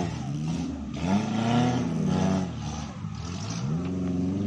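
Suzuki LJ80 Jimny engine revving on an off-road trail: it rises in pitch about a second in, holds, drops back near three seconds, then rises again near the end.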